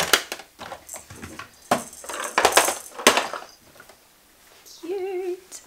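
Plastic toys clattering and knocking against each other and the wooden toy box as they are lifted out, in a quick run of rattles over the first three seconds. A short warbling tone follows near the end.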